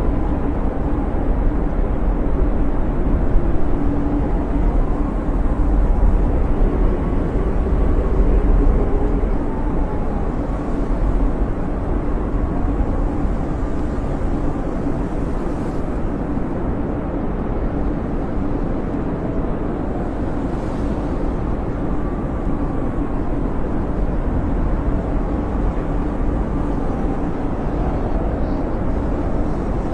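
Snowstorm wind howling: a steady low rush with faint whistling tones that waver up and down.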